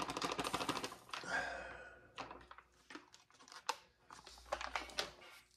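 Foil-laminate ration pouch being handled and torn open: a dense crackling rip in the first second, then scattered crinkles and ticks of the stiff packaging.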